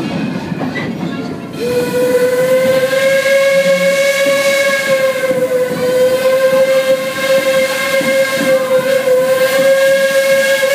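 Steam locomotive whistle on Detroit & Lima Northern No. 7 sounding one long held blast that starts about a second and a half in, its pitch wavering slightly. Beneath it is the running noise of the train on the rails.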